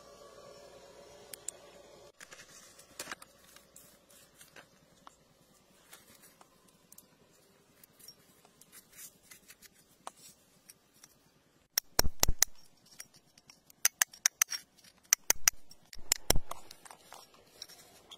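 Fingers digging and scraping in gritty soil and rock, with scattered scratching and crumbling grit, then a run of sharp clicks and knocks in the second half that are the loudest sounds.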